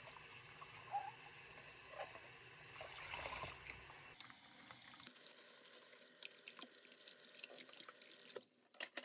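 Faint steady hiss with a few light clicks and knocks.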